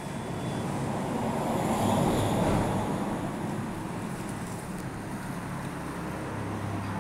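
Steady low rumble of background traffic, swelling slightly about two seconds in, then easing off.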